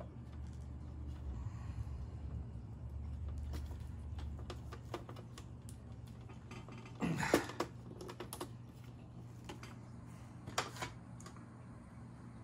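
Small clicks and snaps of hand wire-crimping pliers and wire being handled as insulated terminals are crimped onto green ground wire, with a louder clatter about seven seconds in and another near ten and a half seconds. A steady low hum runs underneath.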